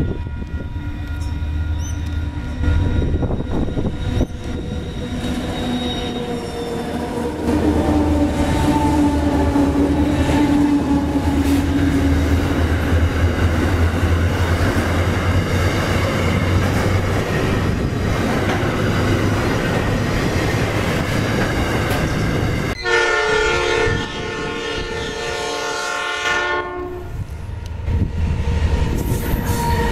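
Diesel freight trains: a locomotive's engine drones low as it approaches, followed by wagons rolling past with rail clatter. About three-quarters of the way through, after a sudden change, a locomotive horn sounds one held multi-note chord for about four seconds.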